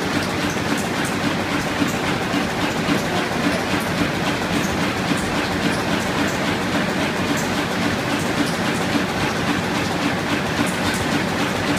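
Web stacker running on a web offset press line, stacking printed sheets into a compressed bundle, with a steady, fast mechanical clatter.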